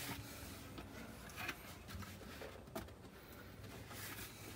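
Faint handling noise from an InSinkErator Evolution Select garbage disposal being lined up against its sink mounting ring: a few soft clicks and scrapes over a low steady hum.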